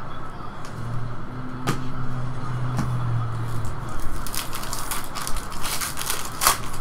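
Foil wrapper of an Arrow Season 2 trading-card pack crinkling and tearing open, a dense run of crackles in the second half that peaks near the end. Before it a low steady hum and two sharp clicks.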